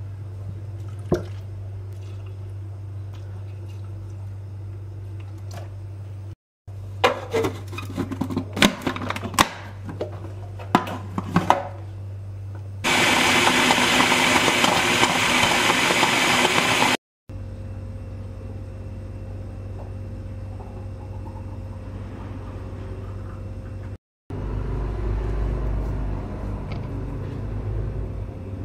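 Electric food processor running for about four seconds, blending milk, banana and ice cubes, then stopping abruptly. Before it comes a run of sharp clatters and knocks; a steady low hum runs under the rest.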